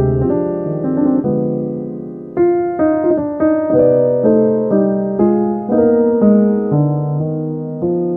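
Solo piano music, played slowly: a chord rings out and fades over the first couple of seconds, then single notes and chords are struck about every half second, each left to ring and die away.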